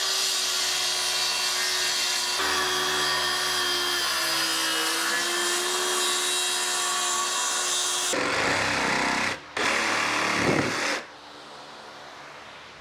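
Circular saw running and cutting through a plywood sheet, a steady high whine that shifts slightly in pitch about two seconds in. About eight seconds in a jigsaw takes over for about three seconds, a rougher buzz with a short break, cutting the same plywood.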